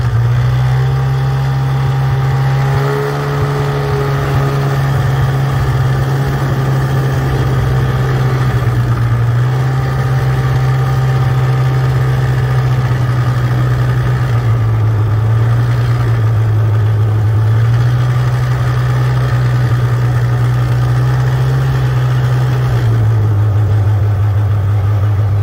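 Snowmobile engine running steadily as it tows inner tubes through snow. Its pitch drops and rises again a few times as the throttle eases and opens.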